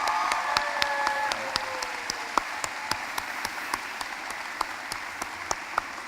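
Large audience applauding, with a few cheers in the first second or so; the applause slowly dies down.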